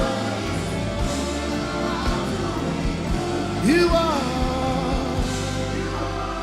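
Live gospel worship music with singing over sustained chords and a low beat; a voice slides up and then falls away about three and a half seconds in.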